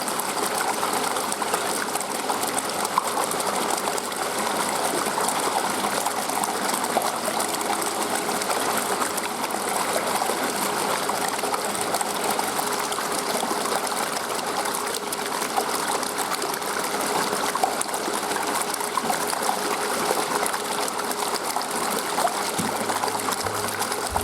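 Water running steadily into an indoor fishing pond, a continuous gushing trickle.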